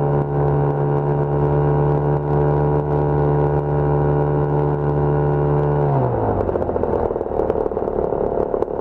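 Lazair ultralight's twin small engines running steadily, then throttled back about six seconds in: the pitch drops quickly and they settle into a rough, clattering idle.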